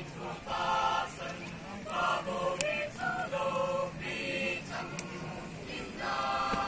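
Church choir singing, several voices holding chords together, with the notes changing every second or so.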